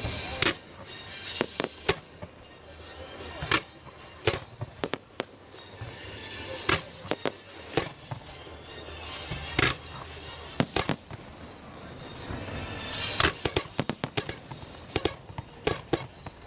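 Aerial firework shells bursting in sharp bangs at irregular intervals, over a steady crackle. Near the end the bangs come several a second in a rapid cluster.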